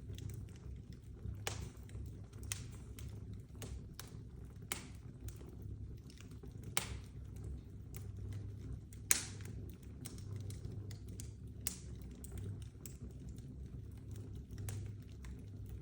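Open fire crackling, with irregular sharp pops, the loudest about nine seconds in, over a low steady rumble.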